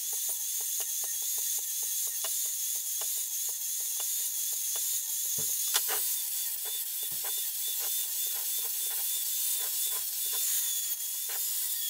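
Angle grinder running with a thin, slightly wavering whine, its disc grinding the cut edges of a thin steel gas bottle to take off the burrs. A rapid, irregular ticking comes from the disc catching on the edge.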